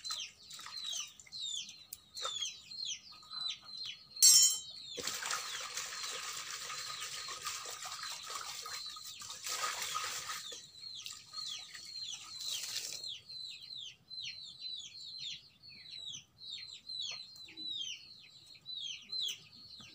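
Chicks peeping over and over in short falling calls. A sharp knock about four seconds in, then hands splashing and swishing water in a steel pot for about eight seconds.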